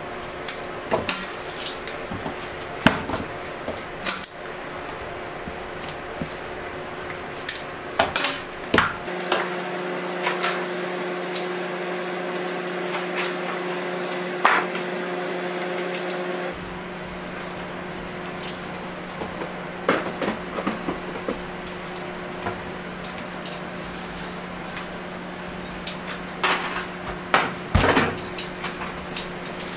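Scattered metallic clicks and knocks of scissors and tools against a steel work table as candy strips are cut and handled, over a steady hum.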